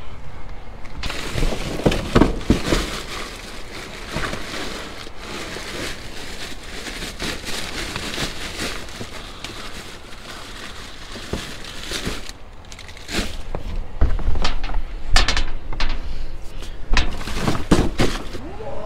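Rummaging through a dumpster: plastic bags and packaging rustling and crinkling, with clicks and knocks as items are shifted. It gets louder and heavier with thumps from about two-thirds of the way in.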